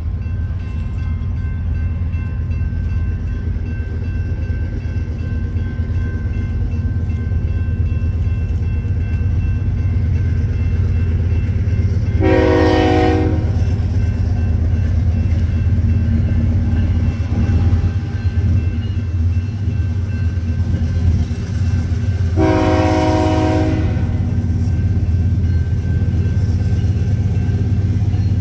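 Approaching diesel freight train: a steady low rumble, with the lead locomotive's multi-chime air horn sounding two blasts for the grade crossing, one about 12 seconds in and one about 22 seconds in, each about a second and a half long.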